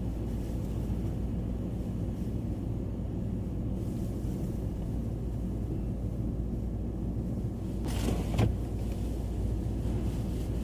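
Steady low rumble of a running vehicle heard from inside the cabin, with a brief louder whoosh about eight seconds in.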